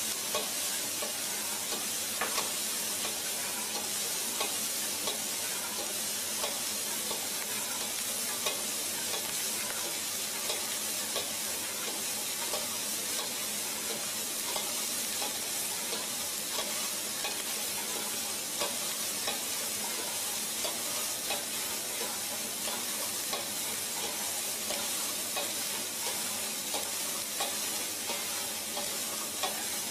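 Egg fried rice sizzling in the wok of an automatic stir-fry machine, with its mechanical spatula scraping and clicking against the pan as it turns the rice. Steady frying hiss throughout, with frequent small clicks.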